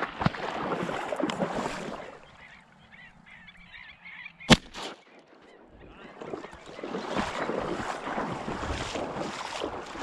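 Waterfowl calling and honking, busier at the start and again in the second half. About halfway through comes one sharp crack, the loudest sound.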